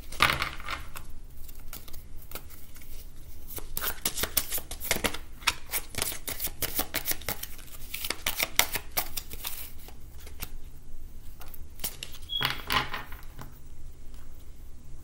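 A deck of Kipper fortune-telling cards shuffled by hand, a rapid run of soft flicks and slaps of card on card, with a card set down on the wooden table near the end.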